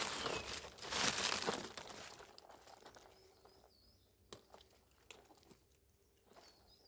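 Rustling and crunching of dry leaves and undergrowth being pushed through on foot, loudest over the first two seconds and then fading, followed by a few faint twig snaps.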